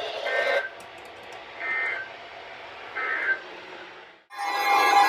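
Emergency Alert System end-of-message data bursts: three short, raspy digital chirps about a second and a half apart over radio hiss, marking the end of the warning. Near the end a loud, steady alert tone starts abruptly.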